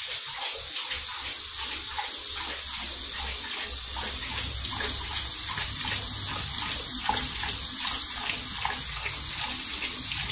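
Water running steadily from a kitchen tap into a stainless steel sink, the stream broken up by a dog drinking from it.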